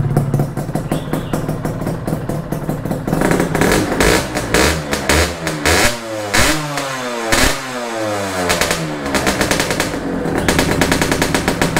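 Honda Nova Dash 125 two-stroke engine through a DBS expansion-chamber exhaust, idling, then blipped several times about three seconds in, the revs rising and falling, before settling back to idle near the end.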